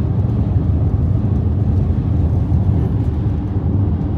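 Steady road and engine rumble inside a moving car's cabin, a low even drone with no sudden sounds.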